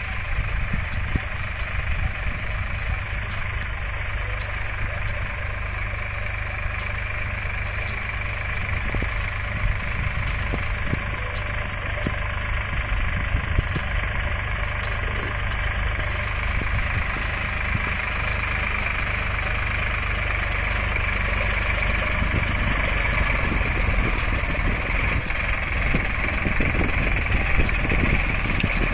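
Solis four-wheel-drive tractor's diesel engine running steadily under load while pulling a plough through the soil, getting louder as it comes close near the end.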